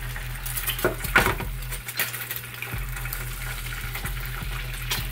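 Eggs frying in a pan, a steady sizzle broken by several sharp clinks and scrapes of a cooking utensil against the pan, over a steady low hum.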